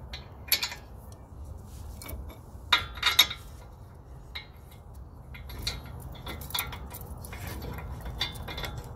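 Metal hand tools and truck parts clinking and knocking together in a scattered series of sharp hits, the loudest two close together about three seconds in, over a low steady background rumble.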